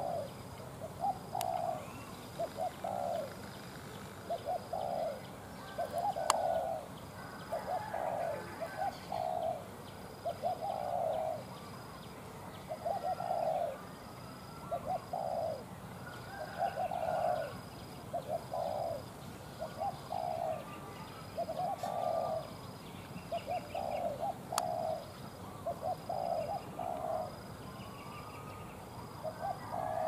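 Spotted doves cooing over and over, each phrase a short group of two or three low notes, repeating every second or two. Two sharp clicks cut in, one about six seconds in and one later on.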